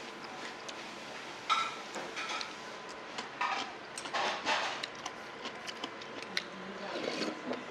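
Eating udon from a stainless steel bowl: a series of short slurps of noodles and broth, with light clicks of metal chopsticks and bowl.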